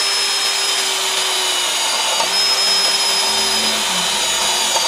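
Mollar CD12300 12-volt brushless cordless drill running with a steady whine while drilling through doubled light-steel channel, its pitch dipping briefly about two seconds in.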